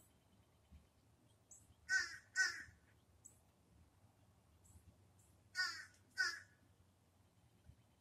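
Domestic cat giving short, caw-like calls in imitation of birds: two quick calls about two seconds in, then another pair about five and a half seconds in.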